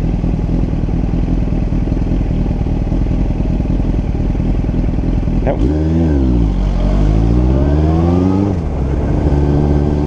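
Motorcycle engine running at low revs, then accelerating a little past halfway: its pitch climbs for a couple of seconds, dips at a gear change, and climbs again.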